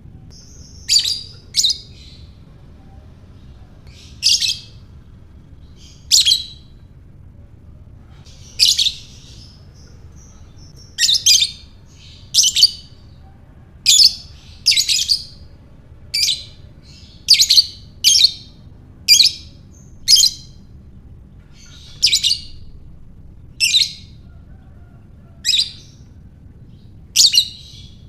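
Lovebird giving short, sharp, high chirps one at a time, about twenty of them spaced irregularly a second or two apart.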